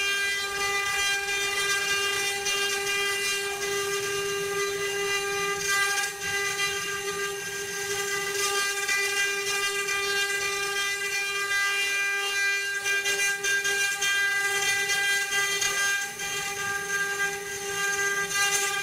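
CNC wood-carving router's spindle running at a steady high pitch, with the hiss of the cutter working the wood.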